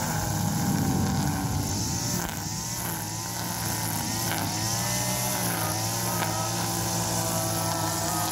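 Backpack two-stroke petrol brush cutter (1.3 kW) running at high speed while cutting dry grass. Its engine note dips and picks up again several times as the cutting head meets the grass.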